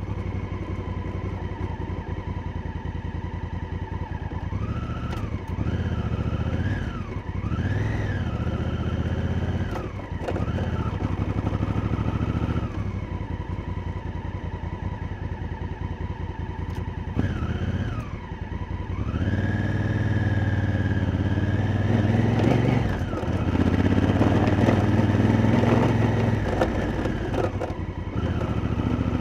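Honda Africa Twin's parallel-twin engine, recorded on board while riding, its revs rising and falling with throttle and gear changes, then holding higher and louder for several seconds in the second half. A few sharp clicks sound over the engine.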